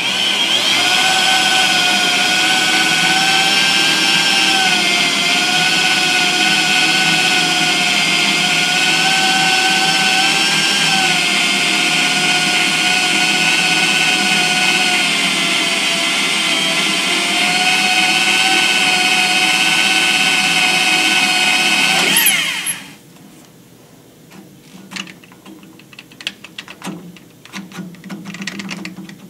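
Corded electric drill spinning a core drill that bores out an exhaust valve guide hole in a big block Chevy cylinder head, with a collar pressed hard against the valve seat. The drill runs with a steady whine whose pitch wavers slightly under load, and it stops about 22 seconds in. Faint clicks of handling follow.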